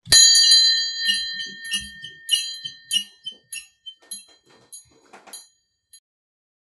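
A small wall-mounted metal bell, set swinging, rings with a loud first strike. Its clapper then strikes again about twice a second, more weakly and unevenly each time, until the swinging dies away after about six seconds.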